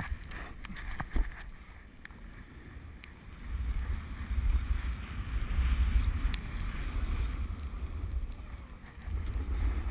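Wind buffeting a GoPro's microphone while snowboarding downhill, with the board sliding and scraping over snow. The low rumble grows much louder about three and a half seconds in as the rider picks up speed.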